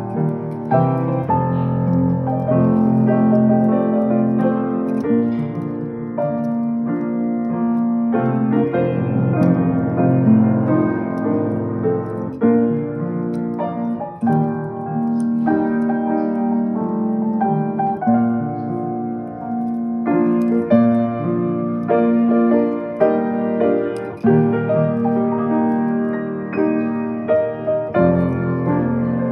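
Samick grand piano played by hand: a continuous tune of notes and chords in both hands, with no pause.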